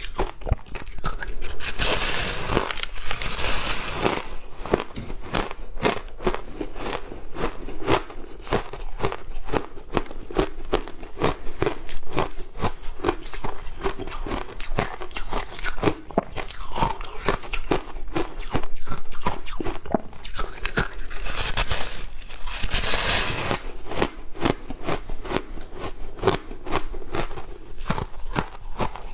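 A person biting and chewing frozen matcha ice, with continuous rapid crunching. Two louder, harder bites come about two seconds in and again about three quarters of the way through.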